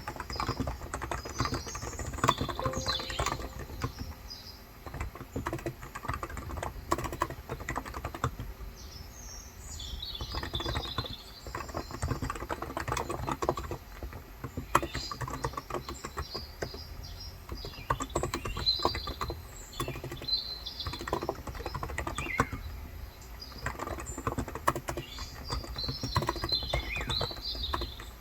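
Steady, fast typing on a Cox Endeavor 35g electrostatic capacitive (Topre-style) tenkeyless keyboard, a dense run of soft key clacks. Birds chirp in short spells over it, near the start, around the middle and near the end.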